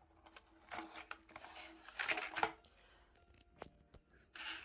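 Cardboard gift box and its plastic insert tray being handled: the tray slides out of the cardboard sleeve with scraping and rustling and is set down on a table, with a few light knocks. The loudest rustling comes about two seconds in.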